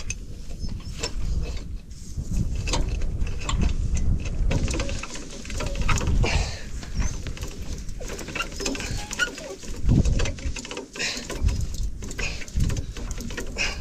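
Irregular metallic clicking and scraping of hand work on a car, such as working a jack's crank handle, over a steady rumble of wind on the microphone.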